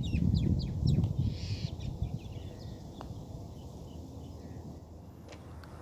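Small birds chirping in short repeated calls over low wind rumble on the microphone, with a single faint click about three seconds in.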